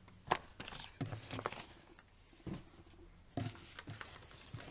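Paper catalogues being shuffled and set down on a wooden table: rustling with a scatter of light taps and knocks, the sharpest about a third of a second in.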